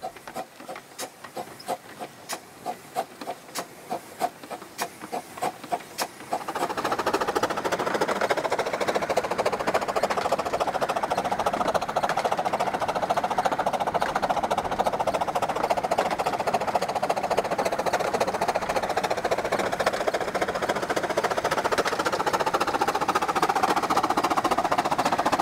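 15-inch gauge 4-6-2 steam locomotive Northern Chief pulling away from a standstill: its exhaust beats start as separate chuffs that quicken over the first six seconds. Then they turn louder and merge into a rapid, even beat as it gathers speed.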